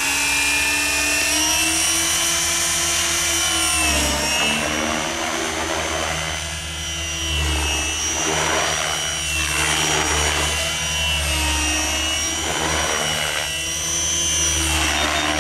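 Compass Atom 500 electric RC helicopter flying in idle-up: a steady motor and gear whine with the main rotor blades whooshing. The whine dips in pitch briefly about four seconds in and again near the end, as the load changes in manoeuvres.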